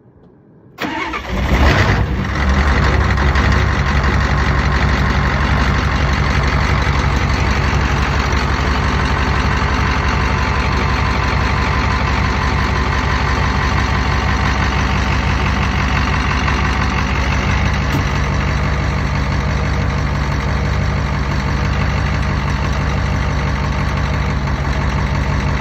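Engine cranking briefly just under a second in, catching, and settling into steady running at idle.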